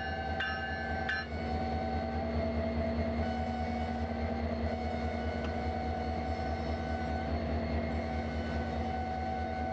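EMD SD70ACe diesel locomotive Union Pacific 1996 running at low speed, with a steady engine rumble and a held whine. Its bell rings about twice a second and stops about a second in.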